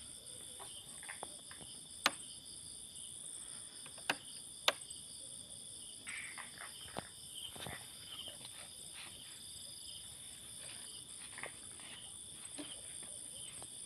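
Night crickets and other insects chirring steadily in several high, pulsing pitches, with three sharp clicks about two, four and four and a half seconds in, and a few fainter taps later.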